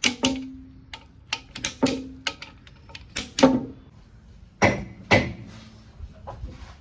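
Sharp metallic clicks and knocks, about eight spread over several seconds, some with a brief ring after them: hand tools at work on the crankshaft main bearing cap bolts of an engine being reassembled.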